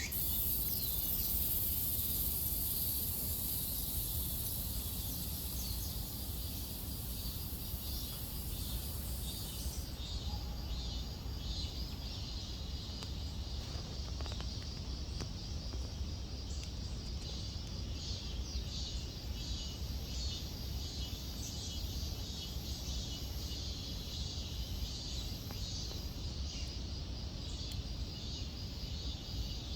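Insects chirping in quick repeated calls, over a steady high-pitched insect drone that cuts off suddenly about ten seconds in. A low rumble runs underneath.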